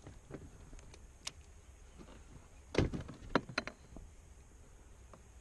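A few light knocks and clicks from fishing tackle being handled on a boat, a small cluster of them about three seconds in.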